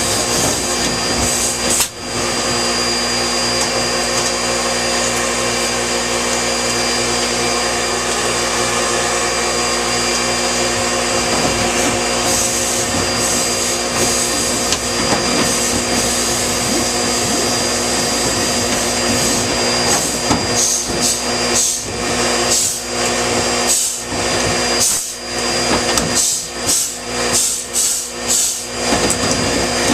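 Vacuum cleaner running steadily, sucking lint out of a dryer vent. About two-thirds of the way in, its sound starts to break up into irregular dips and surges.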